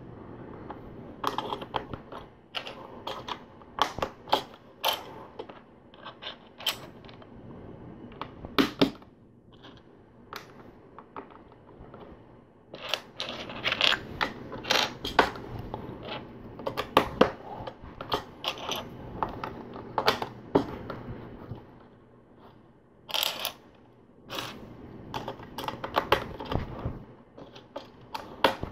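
LEGO plastic bricks clicking and clattering as they are picked from a loose pile and pressed onto a build: irregular sharp clicks, with a couple of brief quieter pauses.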